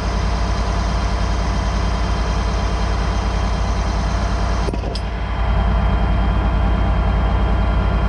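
Case IH 7130 tractor's diesel engine running steadily close by, with a single sharp knock a little before halfway through. The engine gets a little louder from about two-thirds of the way in.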